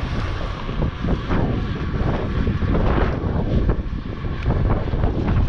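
Wind rumbling on a helmet camera's microphone, with scattered knocks and rustles from ski gear being handled close by.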